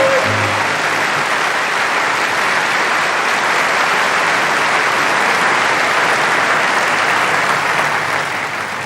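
A theatre audience applauding at the end of a song, right after the singer's final held note cuts off; the applause is steady and dies down a little near the end.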